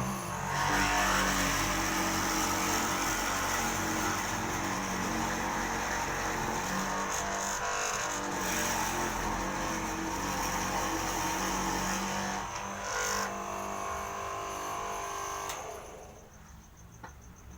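Electric mortising machine running under load while cutting a mortise in wood: a steady motor tone with a harsh cutting hiss. It shuts off near the end and the sound drops away.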